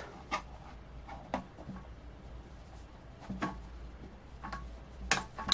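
Scattered light clicks and taps, about a second apart, from a small piston air compressor and its parts being handled during repair. The sharpest tap comes near the end.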